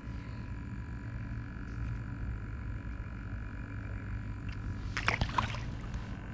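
A steady low mechanical hum with several faint steady tones over it, with a few light clicks and knocks about five seconds in.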